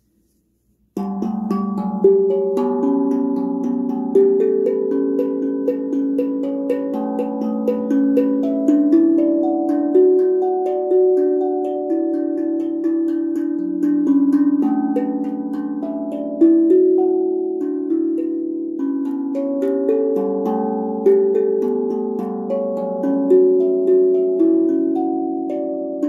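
BeatRise 13-inch, 15-note carbon-steel tongue drum struck with mallets, its bottom sound-hole plug removed, playing a slow made-up melody. Single notes ring on and overlap one another, starting about a second in.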